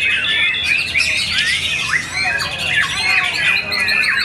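White-rumped shama (murai batu) singing a fast, unbroken stream of varied whistles, sweeps and trills, with notes overlapping as other contest birds sing around it.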